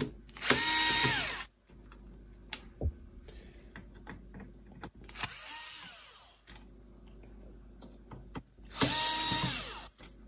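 Cordless drill-driver backing out the screws holding the cassette deck's front cover. It runs in three short bursts of about a second each, near the start, in the middle and near the end; each time the motor winds up, holds, then spins down, and the middle run is quieter.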